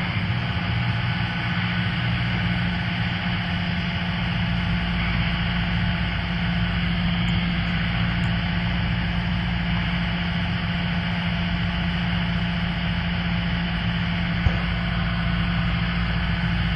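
Steady drone of a Cessna Skyhawk's piston engine and propeller heard inside the cabin on the base leg of the approach, with one brief click near the end.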